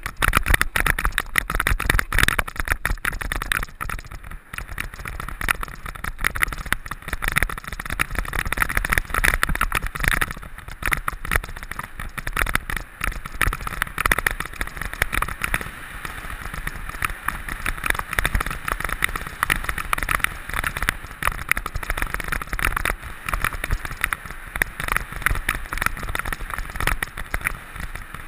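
Mountain bike ridden fast over rough ground: a constant clatter of knocks and rattles from the bike over a steady rumble of tyre and wind noise.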